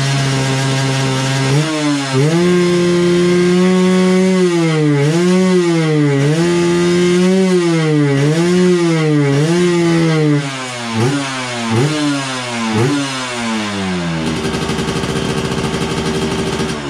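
Small underbone motorcycle engine being revved by hand on the throttle: held at a raised speed, then blipped up and down about once a second, then a few quick sharp blips, before dropping back to idle near the end.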